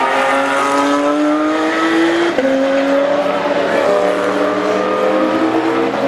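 Race car engine pulling hard, its pitch climbing. About two seconds in, an upshift drops the pitch sharply, then the engine pulls on.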